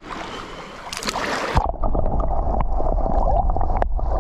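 Water sloshing at the surface, then, about one and a half seconds in, the sound turns muffled: a steady low rumble with scattered clicks as the camera goes underwater.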